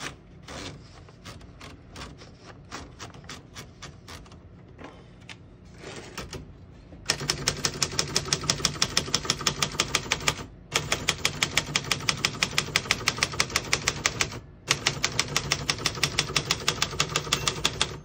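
1962 Royal Dart portable manual typewriter: a few scattered clicks as a sheet is fed in and the platen knob turned. About seven seconds in, rapid steady typing starts, several key strikes a second, broken by two brief pauses.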